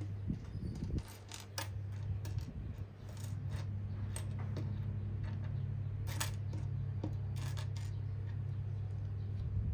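Small plastic building bricks being handled and pressed together: irregular sharp clicks and light rattles, over a steady low hum.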